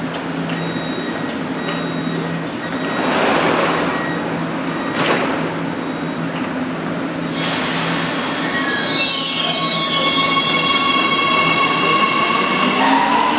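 Siemens Inspiro metro train at a platform: its doors slide shut, then a sudden hiss and the whine of its electric traction drive as it pulls away. The whine has several tones that fall, hold, and then rise near the end as it gathers speed.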